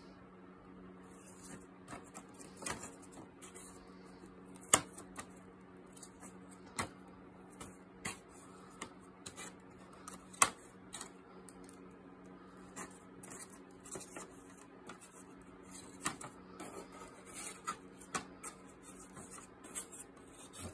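Painted wooden panels clacking against one another as they are flipped through by hand in a plywood crate: irregular sharp knocks every second or two, two of them much louder about five and ten seconds in. A steady low hum runs underneath.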